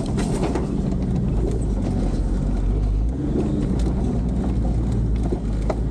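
Inside the cabin of a 4x4 driving on a rough dirt track: a steady low engine and road rumble, with scattered knocks and rattles from the bumps.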